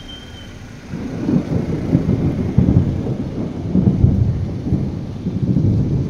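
Thunder rumbling low, starting about a second in and rolling on in uneven swells.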